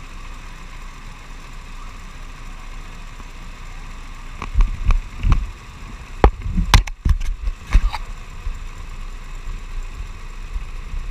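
Steady mechanical hum, with a cluster of loud knocks and thumps from about four and a half to eight seconds in.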